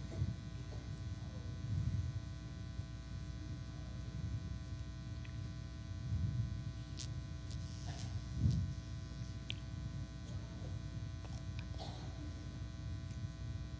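Steady electrical buzz and hum from a live microphone and sound system, with a few faint clicks and knocks.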